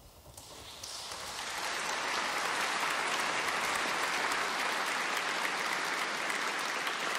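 Audience applause, starting about a second in and quickly building to steady, dense clapping.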